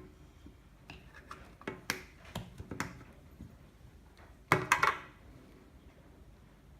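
Plastic Play-Doh tools and containers being handled: scattered light clicks and taps, then a louder clatter of several knocks about four and a half seconds in.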